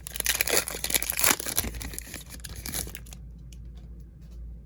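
A plastic trading-card pack wrapper being torn open and crinkled: a dense, loud crackling that stops about three seconds in, leaving only a few faint ticks.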